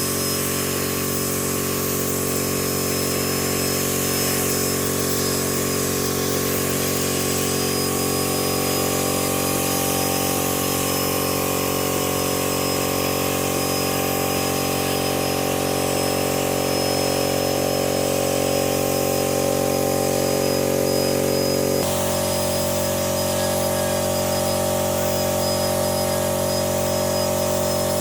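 A power tool's motor running steadily, with a sudden change in its tone about 22 seconds in.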